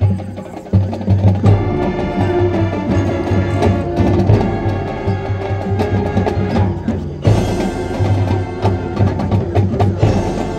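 High school marching band playing a field show. The music starts suddenly with drums and percussion, brass chords come in about a second and a half in, and there is a brief drop near seven seconds before it carries on.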